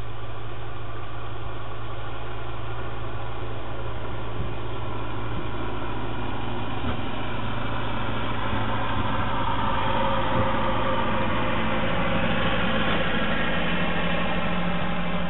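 Ferguson TEA 20 tractor engine running as the tractor drives along the driveway, growing louder about halfway through as it comes closer and passes by.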